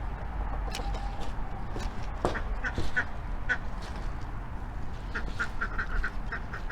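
Chickens clucking: short calls, a few scattered at first and then a quicker run near the end, with a few sharp clicks among them.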